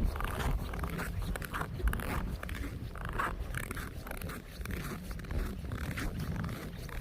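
Wind rumbling on the microphone in a snowstorm, with a steady run of short crunching and scraping sounds.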